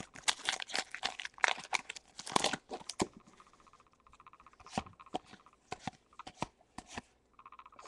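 Foil booster-pack wrapper being torn open and crinkled for about three seconds, a dense crackle of sharp ticks. Then sparser light clicks and snaps as the trading cards are handled.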